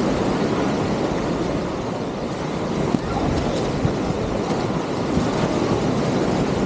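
Steady beach ambience: wind buffeting the microphone over the wash of surf, with a couple of small knocks in the middle.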